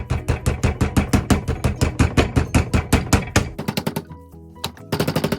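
Rolling pin pounding a butterflied chicken breast flat, in quick repeated blows about seven a second; the blows pause for about a second near the end and then start again.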